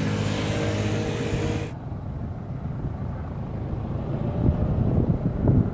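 A vehicle engine running with a steady hum, which cuts off abruptly under two seconds in. A low, irregular rumbling follows, with surges of noise near the end.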